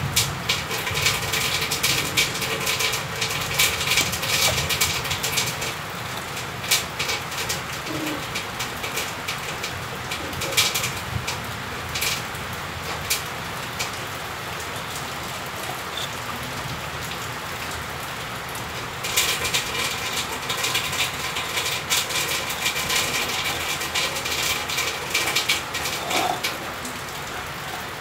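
Steady rain falling, with stretches of crackling rustle from a woven plastic sack being handled at a wire-mesh snake trap, near the start and again from about two-thirds of the way through.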